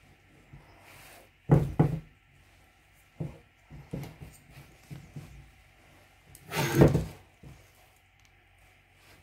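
Handling noises: two loud thunks close together about a second and a half in, then a run of lighter knocks, and a longer, louder noise lasting about half a second near seven seconds in.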